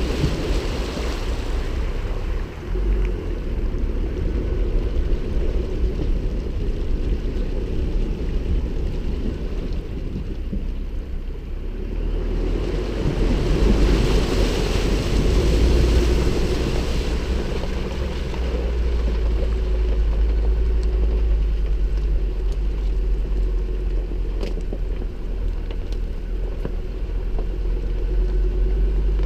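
Ford Ranger T6 pickup wading up a shallow river: a steady low engine rumble under the rush and splash of water pushed against the front, louder for a few seconds in the middle. Near the end the truck is out of the water, driving on gravel.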